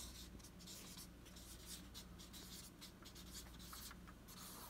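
Marker pen writing on flip-chart paper in many quick, short, faint strokes, over a low steady hum.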